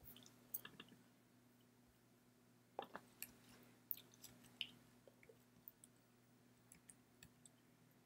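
Near silence broken by about a dozen faint, short clicks scattered irregularly, most of them between about three and five seconds in.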